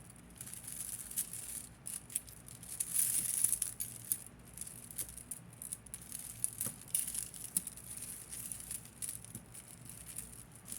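Tangled jewelry chains and beads clinking and rattling as they are handled and pulled apart by hand, in small irregular clicks with a denser rustle about three seconds in.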